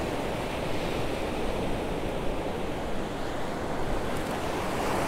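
Ocean surf breaking and washing up a sandy beach: a steady rushing noise with no distinct strokes.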